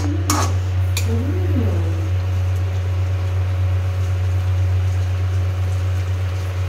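Steel spatula stirring carrots in an aluminium wok, clinking against the pan twice in the first second, over a steady low hum.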